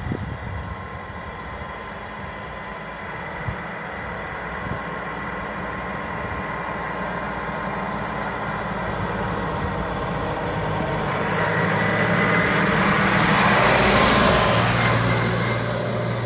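Farm tractor with a front loader driving toward the microphone along a road, its diesel engine getting steadily louder. It passes close about thirteen to fourteen seconds in, with a rush of tyre noise, then eases off slightly.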